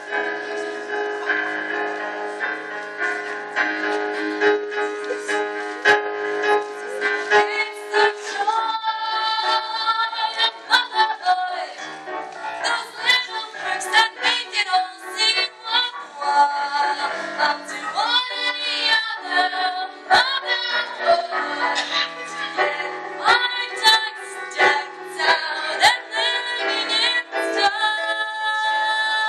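Female voices singing a show tune over instrumental accompaniment; held chords for the first several seconds, then a moving sung melody from about eight seconds in.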